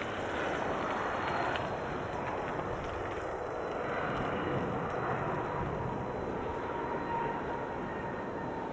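Cessna Citation CJ4 business jet's twin Williams FJ44 turbofans heard from the runway side: a steady rushing jet noise with a faint whine, as the jet rolls out after landing.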